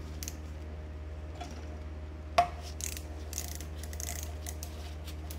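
Screwdriver working the belt-guard screw on a vintage Singer 127 sewing machine head, with small metal clicks and scrapes. One sharp click about two and a half seconds in is the loudest sound, over a steady low hum.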